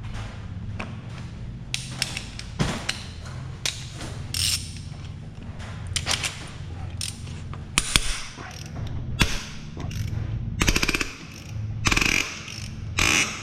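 Hand ratchet clicking in short spurts, with metal tools clinking and clanking, as tight bolts are broken loose and run out during an engine teardown.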